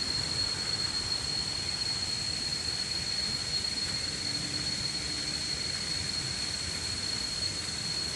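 Steady rushing background noise with a constant high-pitched whine over it.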